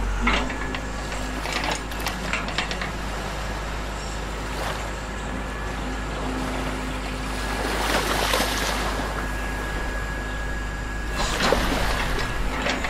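Radio-controlled scale model excavator working, its motor giving a steady whine while the bucket digs and dumps beach sand. There are louder hissing swells of moving sand at the start and about eight and eleven seconds in.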